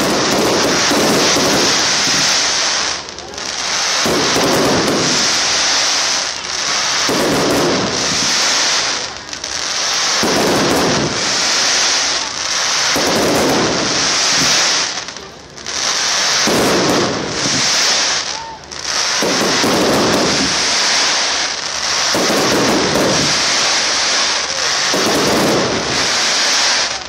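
Fireworks finale barrage: shells bursting in quick succession with continuous crackling, loud throughout, with brief dips every few seconds.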